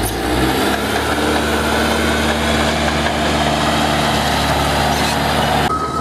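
An engine running steadily, with a low even hum under a broad hiss. Near the end the hiss drops away suddenly and a thin, steady high tone comes in.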